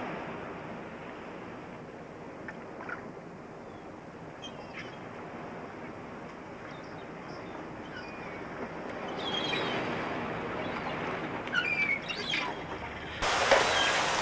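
Outdoor ambience: a steady rush of wind or surf with a few short bird chirps scattered through. About thirteen seconds in, a louder rushing noise cuts in suddenly.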